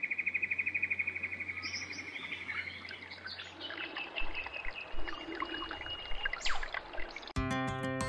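Bush soundscape: a fast, pulsing high trill for the first two or three seconds, then assorted bird chirps and calls, with a sharp rising whistle near the end. Acoustic guitar music starts just before the end.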